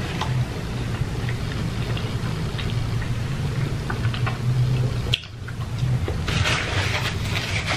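Close-miked chewing and mouth sounds of someone eating pizza: small wet clicks over a low steady hum, with a louder noisy stretch about six seconds in.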